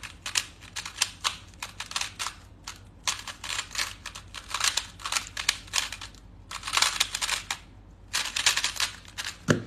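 Rubik's cube being turned at speed: rapid clusters of plastic clicks as the layers snap round, with short pauses between bursts, ending in a thump near the end.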